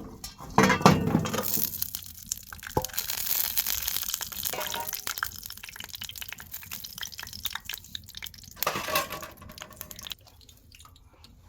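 Water being poured and splashing in a vessel, in uneven spurts with small clinks, loudest about half a second in and again near the end.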